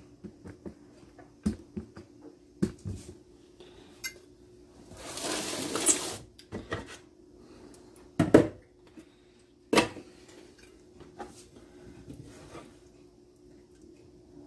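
Serving utensils clinking and scraping against plates and cooking pots as food is dished out: a few sharp separate clinks, with a longer scrape about five seconds in.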